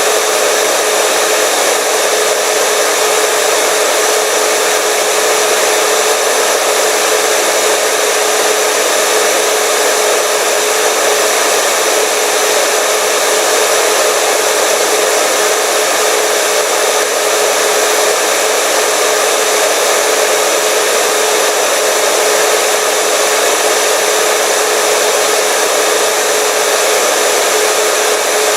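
Hair dryer running steadily: a constant rush of air with a steady motor hum.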